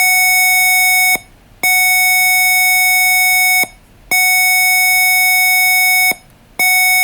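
Simulated smoke-alarm buzzer from the KidBright simulator, sounding because its program has detected smoke. It beeps a steady, loud, buzzy tone in even pulses of about two seconds, each followed by a gap of about half a second.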